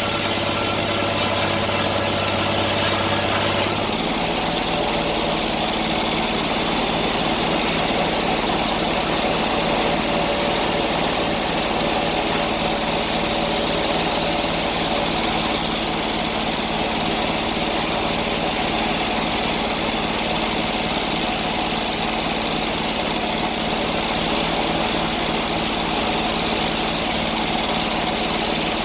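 Sawmill engine running steadily; about four seconds in its note changes and then holds.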